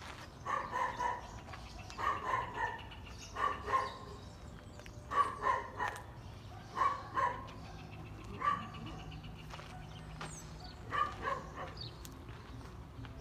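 A dog barking repeatedly, in about seven short runs of two or three barks each, with pauses between them.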